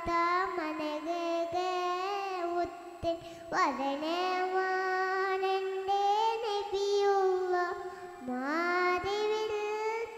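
A young girl singing a devotional song solo into a microphone, with no accompaniment: long held, wavering notes with swooping slides between them and short breaks for breath between phrases.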